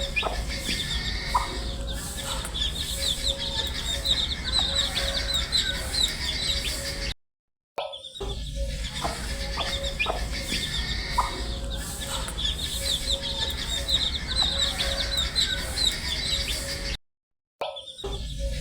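A flock of baby chicks peeping: a dense, continuous stream of many short, high, falling peeps overlapping one another. The sound cuts out completely for about half a second twice, about seven seconds in and near the end.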